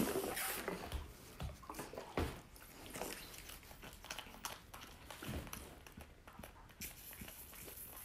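Calf nursing from a milk bottle's rubber nipple: faint irregular sucking and slurping, with a few soft knocks against the bottle.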